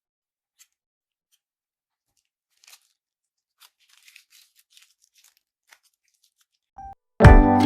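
Slime being squeezed and poked, giving faint scattered crackles and pops. Near the end there is a short beep, then loud acoustic guitar music starts suddenly.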